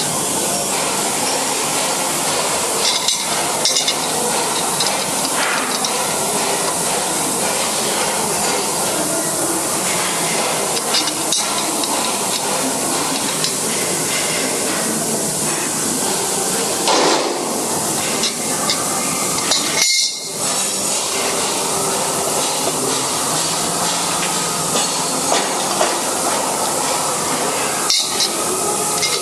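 Occasional metallic clinks and knocks of a ring spanner working the steel blade bolts inside a crusher's cutting chamber, over a steady rushing background noise.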